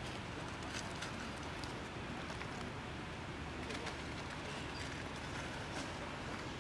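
Steady outdoor background noise with faint bird calls and scattered small clicks.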